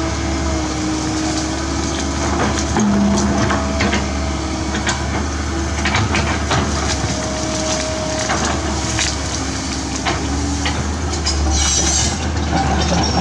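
Komatsu PC130F hydraulic excavator working, its diesel engine running steadily with a shifting hydraulic whine, while the bucket shoves through tree roots and stumps with repeated cracking, snapping and knocking of wood.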